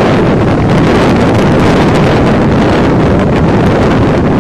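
Loud, steady wind buffeting the microphone, a rumbling rush strongest in the low end.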